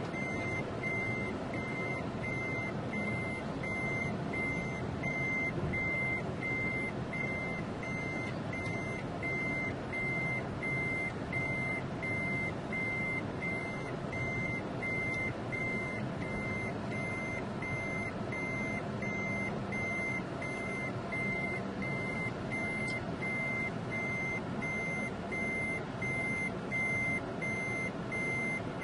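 Lorry's reversing alarm beeping steadily, about two high beeps a second, as the lorry backs up, with its engine running underneath, heard from inside the cab.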